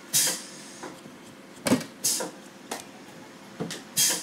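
A small knife working soft young coconut meat over a metal pan: several short, sharp scrapes and taps about a second apart.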